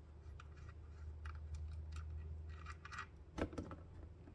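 Small light clicks and scratches of a motorcycle oil drain plug being turned out with an Allen key, with a louder click about three and a half seconds in. A low steady hum runs underneath.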